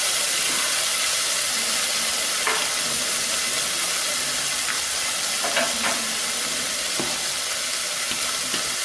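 Chopped vegetables frying in oil and sauce in a clay pot: a steady sizzle with a few small pops.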